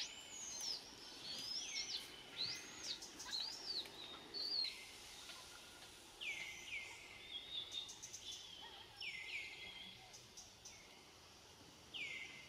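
Infant macaque screaming: repeated high-pitched cries that rise and fall. They come in a quick string through the first few seconds, then a few more, spaced out, later on.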